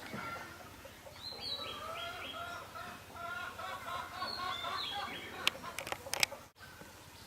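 Chickens clucking, several birds calling over one another in short repeated notes, followed by a few sharp clicks near the end.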